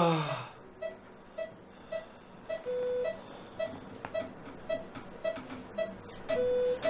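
Hospital patient monitor beeping steadily, about two short beeps a second, with a longer, lower beep every three to four seconds. At the very start a man lets out a short moan that falls in pitch.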